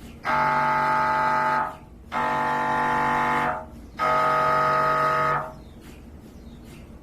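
MRI scanner's gradient coils buzzing: three long, loud buzzing tones of about a second and a half each, with short gaps between them.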